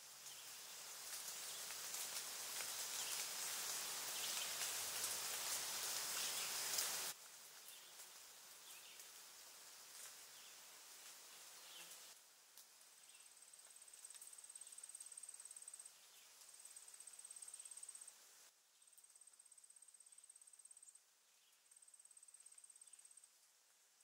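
Edited nature sound effects: a steady rushing hiss builds over the first seconds and cuts off abruptly about seven seconds in. A quieter ambience with faint ticks follows. From about halfway, a high-pitched insect trill sounds in runs of about two seconds with short breaks.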